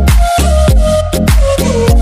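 Background music with a steady electronic beat, about two deep drum hits a second.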